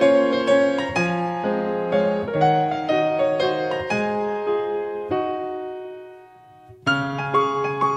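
Background piano music: slow single notes and chords, each ringing away. About six seconds in, the music fades almost out, then starts again a second later.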